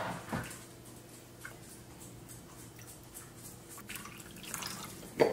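Faint kitchen sounds of water dripping and moving in a pot while beef is blanched, with a few light knocks and clicks of utensils over a faint steady hum.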